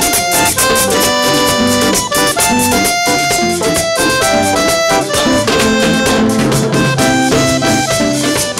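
Live vallenato band playing an instrumental passage: button accordion melody with brass, electric bass and drum kit keeping a steady beat.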